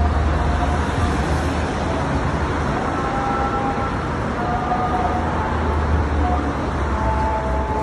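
Road traffic on a busy city street: cars passing, a steady hiss of noise over a low rumble.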